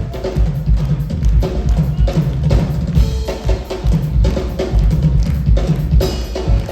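Live rock band's drum kit played hard in a featured drum spot, with fast, dense kick-drum and snare hits and the band's low end sounding underneath.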